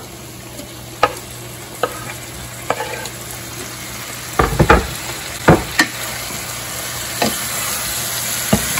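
Chicken strips sizzling in a stainless steel pan of frying pancetta, onions and garlic as they are stirred in, the sizzle growing louder. Sharp knocks of wood against the pan from the cutting board and wooden spoon come through it, the loudest about halfway.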